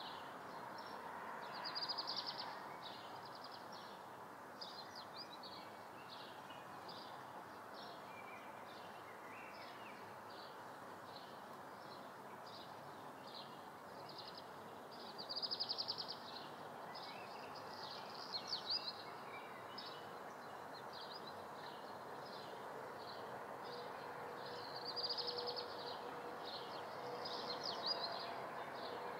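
Summer-morning room ambience: birds outside chirping steadily in short repeated calls, with louder trills several times, over a constant low background hum.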